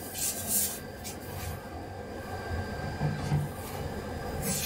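Tomato and coconut-milk sauce heating in a stainless steel wok, giving a soft hiss and sizzle as it comes to the boil, with brief louder hisses about half a second in and near the end.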